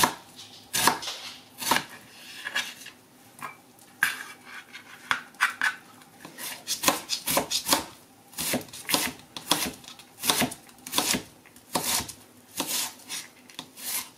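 Kitchen knife dicing half an onion on a plastic cutting board: sharp knocks of the blade on the board, spaced out at first, then a steadier chop of two or three strokes a second.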